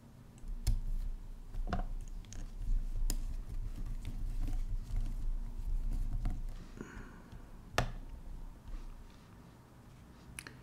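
Hand screwdriver driving the cooler screws into a graphics card, with a few sharp clicks and low handling noise.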